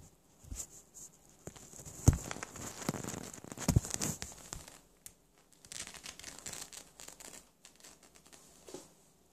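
Scratchy rustling and scuffing as a ferret tussles with a person's trouser legs and a flat mop on a laminate floor, with two sharp knocks about two and three and a half seconds in.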